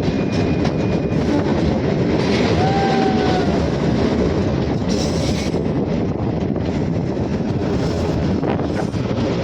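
Shimla narrow-gauge toy train running on its track: a steady rumble and rattle of the wheels and carriages.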